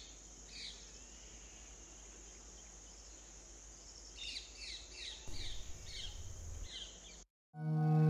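Outdoor ambience: birds giving short, repeated downward chirps over a steady high insect drone. Both cut off abruptly near the end, and soft music with a low held tone fades in.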